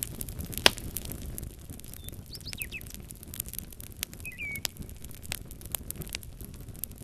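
Wood fire crackling with scattered sharp pops, one louder pop near the start. A small bird gives a few quick chirps about two seconds in and a short whistled call just past four seconds.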